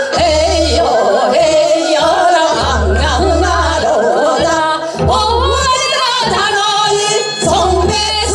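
Two women singing a Seodo sori folk song (the traditional vocal music of Korea's northwestern provinces) in unison through microphones, with a strong wavering vibrato. A recorded accompaniment with a recurring low bass pulse plays under them.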